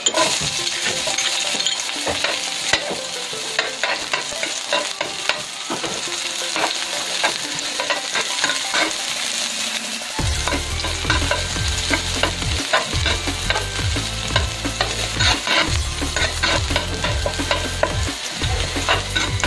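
Chopped onion sizzling and crackling in hot cooking oil in a pan, with a metal spatula scraping and tapping as it stirs the onion around.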